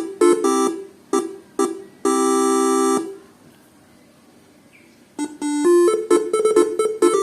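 A Basuri telolet horn set driven by a Faniatech R3 module playing a tune of short, bright multi-tone horn notes that ends on a held chord lasting about a second. After a pause of about two seconds, the next tune starts with a quick run of notes.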